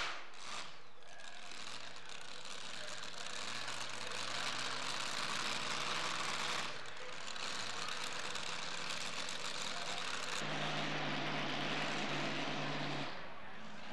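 Supercharged engine of a two-wheel-drive pulling truck dropping off from full throttle at the end of its pass, then idling with a steady low hum.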